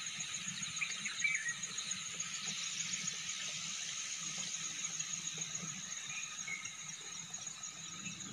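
Steady chorus of insects in tall grass: a continuous high, finely pulsing trill with lower steady tones beneath. A few short bird chirps come about a second in.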